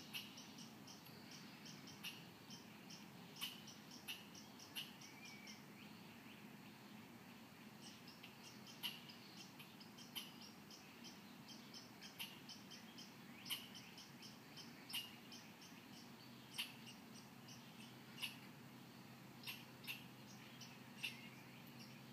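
A squirrel calling: sharp, clicking barks every second or two, irregularly spaced, over runs of quick, faint chirps.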